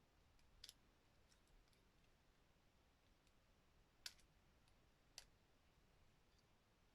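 Faint clicks of a plastic Transformers figure's joints and parts being handled and moved during transformation: three sharper clicks, a little after the start, at about four seconds and just after five seconds, with a few fainter ticks between.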